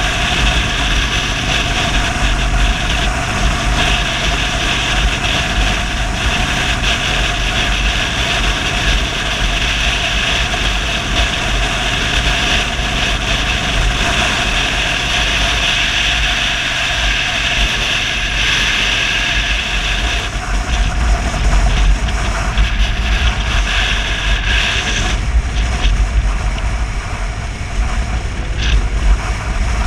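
Cruiser motorcycle riding at speed, its engine running steadily under heavy wind rumble on the camera's microphone.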